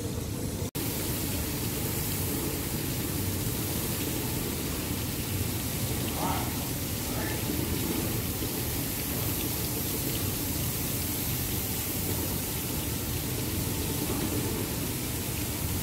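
Steady hissing of an airless paint spray gun on an extension pole, spraying primer onto a steel ship hull, with a momentary drop-out about a second in.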